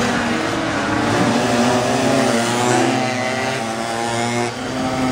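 Several air-cooled Chinese minimoto (pocket bike) two-stroke engines buzzing at high revs, overlapping at different pitches that rise and fall with the throttle as the bikes race through the corners.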